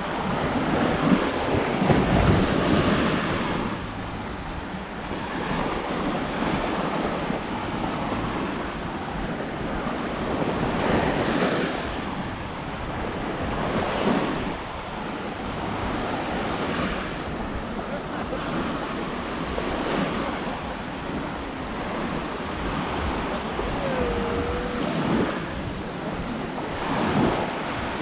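Small waves breaking and washing up a sandy shore, surging and easing every few seconds, with wind buffeting the microphone.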